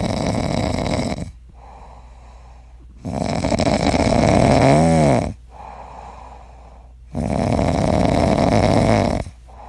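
French bulldog snoring in its sleep: three loud rasping snores about four seconds apart, each lasting about two seconds, with quieter breathing between. The middle snore ends in a wavering whistle.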